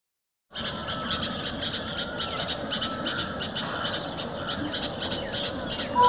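Trackside outdoor ambience: a low rumbling background with a high chirping repeated about four or five times a second. A train horn starts right at the end.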